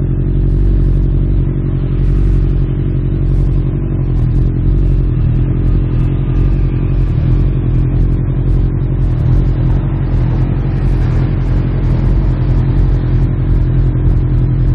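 Honda CB1000R's inline-four engine idling steadily with the motorcycle at a standstill.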